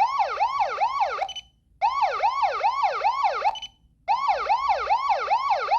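Electronic siren of a GSR-400RV warning light sounding in bursts of about two seconds, separated by short pauses with a brief high beep in each. Each burst is a fast repeating yelp, roughly three falling sweeps a second.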